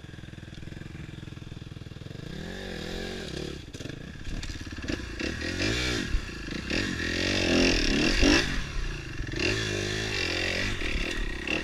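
Off-road motorcycle engine revving in repeated rising-and-falling bursts, getting louder from about two seconds in.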